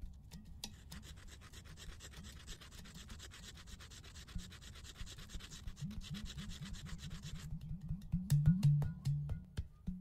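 A small point being ground on a sandstone slab: a fast, steady rasping scrape from about a second in that stops near the end. Background music plays underneath and grows louder in the last couple of seconds.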